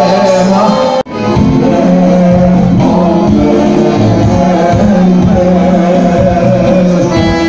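Loud live band music with singing, heard from within the crowd. About a second in, the sound drops out for an instant at an edit cut, then the music resumes.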